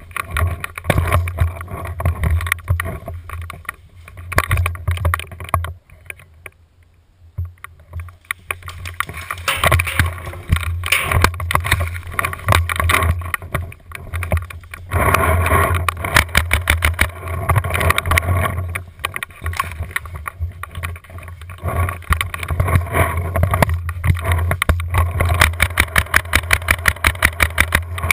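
Tippmann A5 paintball marker firing, heard through a camera mounted on its barrel: many sharp shots, in a fast, even string near the end, over a low rumble of handling and movement, with a quieter lull about six seconds in.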